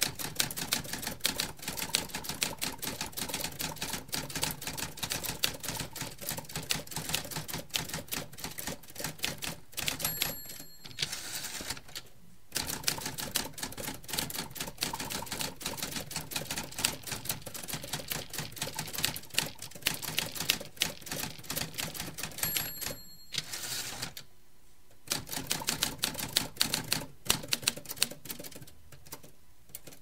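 Typewriter typing in a fast, dense clatter of key strikes, broken by a few short pauses. Twice a brief ringing ding, the end-of-line bell, comes just before a pause.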